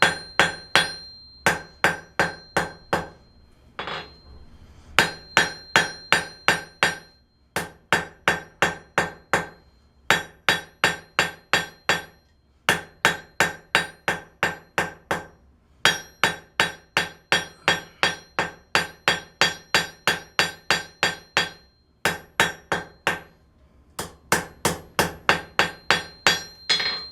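Hand hammer striking 1/4-inch square steel bar stock on an anvil, each blow ringing, as the end is drawn out into a flat taper. The blows come in runs of several, about two to three a second, with short pauses between runs.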